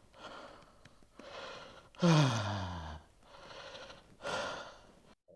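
A man breathing heavily in and out, about five breaths, with a low groan falling in pitch on the loudest breath about two seconds in.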